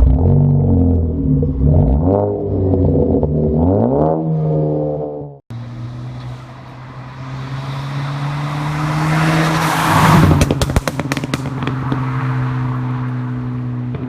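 Ford EcoBoost turbocharged engine with a Stratified crackle-and-pop tune, revved in short throttle blips with its exhaust note rising and falling. After a sudden cut, it revs up and lets off about ten seconds in, with a rapid string of exhaust crackles and pops on the overrun, then settles back to a steady running note.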